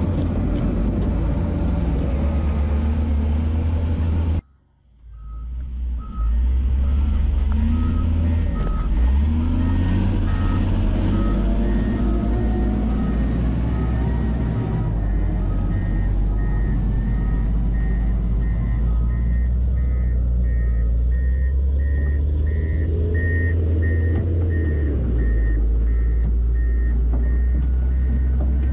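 Caterpillar 950F wheel loader's diesel engine running, with a backup alarm beeping steadily over it. The sound cuts out briefly about four seconds in. After that a lower beep repeats for about ten seconds, then a higher, quicker beep takes over for about ten seconds.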